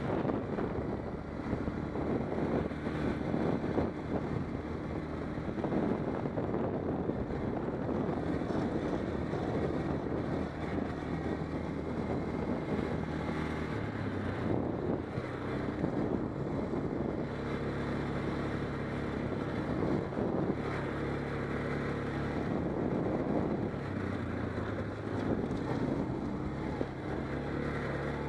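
ATV engine running as the quad drives over a rough dirt trail, its engine note stepping up and down with the throttle.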